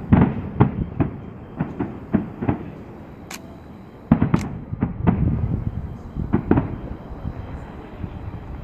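Aerial fireworks shells bursting: a rapid series of booms and sharp cracks, heaviest at the start and again about four seconds in, with a low rumble between the reports.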